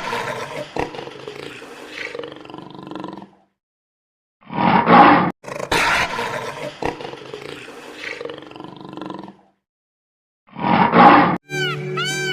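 Lion roaring: loud roars, each trailing off into a few seconds of quieter rumbling, with short silences between bouts.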